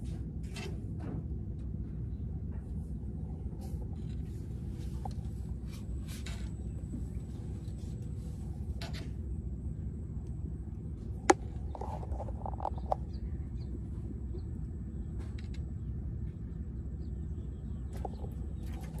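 Steady low engine rumble with a faint even hum, like a motor running at a constant speed. A single sharp click sounds about eleven seconds in.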